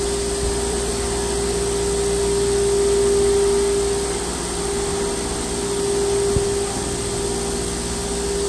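CNC router machinery running steadily: a constant hum with one held mid-pitched tone over an even rush of air.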